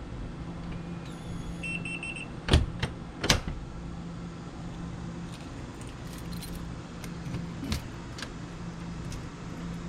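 Keyless RV door lock being tested after cleaning and lubrication: a short run of quick high electronic beeps from the lock, then two sharp clicks of the latch mechanism under a second apart, with fainter ticks later.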